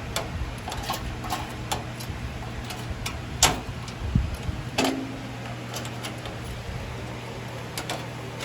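Scattered light clicks and taps of a motherboard and its screws being handled and fitted in a metal PC case, two of them sharper about three and a half and five seconds in, over a steady low hum.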